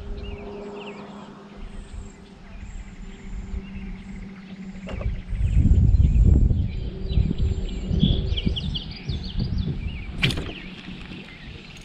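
Outdoor lake ambience with wind buffeting the microphone in low gusts, loudest through the middle, while birds chirp in short calls. There is a single sharp click near the end.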